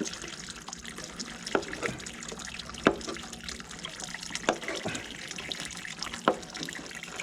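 Water running and splashing, with four sharp knocks along the way.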